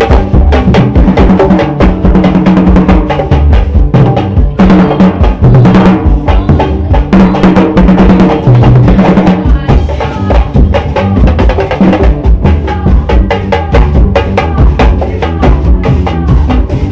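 A swingueira band playing loud, percussion-heavy music: a fast, steady beat of drum kit and hand percussion over a strong bass line.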